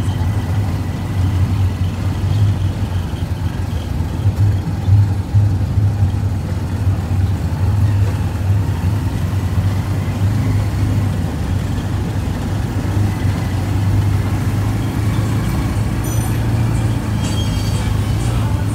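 A motor vehicle's engine running steadily with a low drone, heard from on board as it moves along a street.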